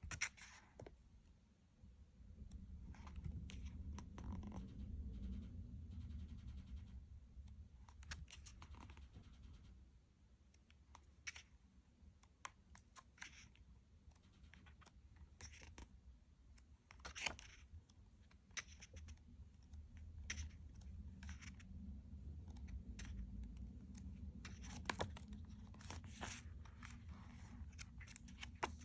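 Glossy pages of a hardcover art book being turned by hand: soft paper rustles and page flicks every few seconds, over a low rumble that swells and fades.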